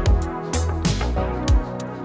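Electronic background music with deep bass notes and a drum beat.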